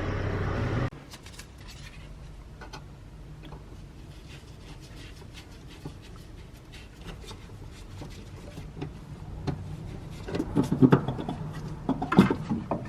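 Scattered light clicks and knocks of hand tools and car parts being handled, with a busier run of metallic clinks and clatter near the end. A steady hum cuts off suddenly about a second in.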